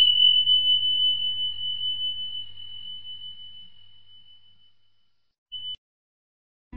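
Intro sound effect for a channel logo: a single high ringing tone, struck sharply and slowly fading over about five seconds, followed by a short blip of the same tone about five and a half seconds in.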